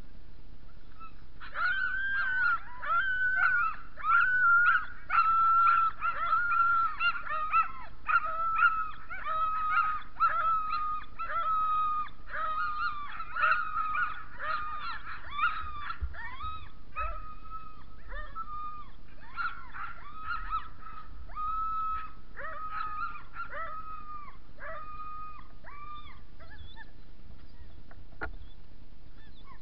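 Sled dogs yelping and howling in quick, overlapping calls, the excited clamour of a team hooked up on the gangline and eager to run. The calls start a second or so in and die away near the end.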